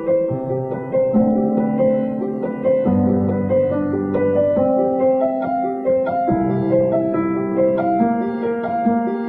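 Instrumental background music: a steady flow of bright, quick notes over low held notes that change every second or two.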